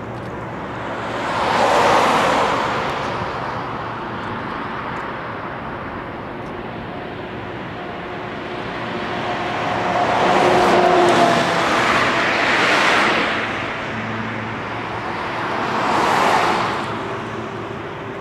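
Airbus A380's four Rolls-Royce Trent 900 jet engines at taxi power: a steady jet rumble and hiss that swells and fades three times, about two seconds in, a longer double swell midway, and again near the end, as the aircraft taxis past and turns.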